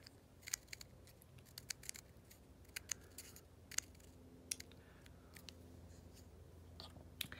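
Faint, scattered clicks and taps of small plastic HeroClix figures on their dial bases being handled and set down on a wooden table.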